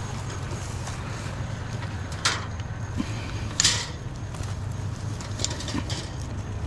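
A vehicle engine idling steadily, with a few sharp knocks around two to four seconds in and lighter ticks later on.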